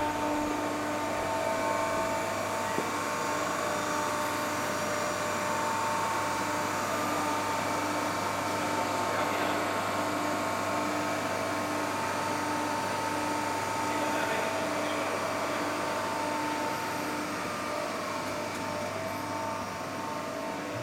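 CNC steel-sheet leveling and shearing line running: a steady motor hum with several held tones over broad machine noise, and a faint tone that pulses on and off about once a second.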